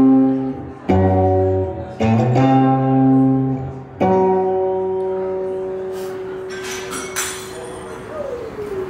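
Steel-string acoustic guitar strumming blues chords, each struck chord ringing out, the last one held for several seconds before a note slides down in pitch near the end. A few light percussive hits come in around two-thirds of the way through.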